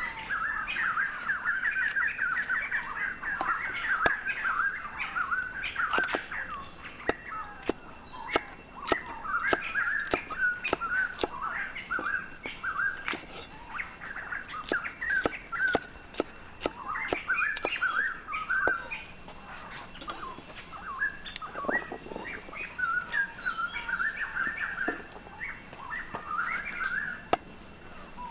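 Cleaver chopping green peppers on a wooden chopping block: a run of sharp knocks, a few a second, thinning out toward the end. Birds chirp and sing throughout.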